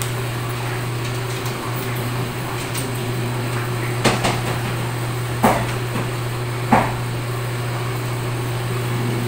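Steady low hum of the paper cutter's electric motor running idle, with three sharp knocks a little over a second apart from a paper stack being set down and squared up on the cutter's metal table.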